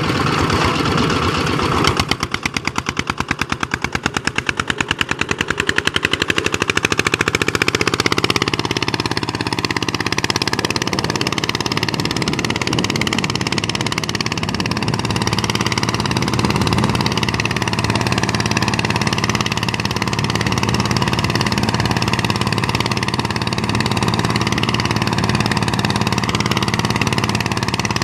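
DW 150 RXI milling machine running. A fast, even pulsing builds up over the first several seconds, then settles into a steady running noise.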